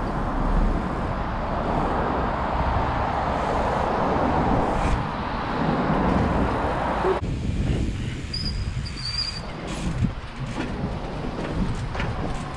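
Wind rush on a bike-mounted action camera mixed with trials-bike tyres rolling over pavement and paving slabs; the rush drops off suddenly about seven seconds in, and a few sharp clicks come near the end.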